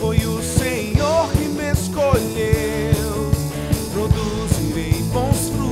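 Rock band playing live: electric bass, electric guitar, drum kit and keyboard over a steady drum beat, with a sung lead vocal.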